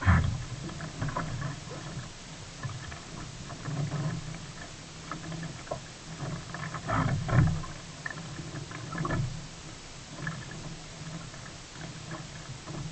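Water splashing and sloshing around a sea kayak, in irregular bursts with low bumps.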